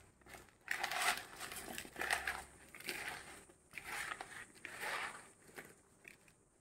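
Hands mixing diced raw mango with salt in a plastic bowl: moist, gritty rustling and squishing in about five strokes, roughly one a second, dying away near the end.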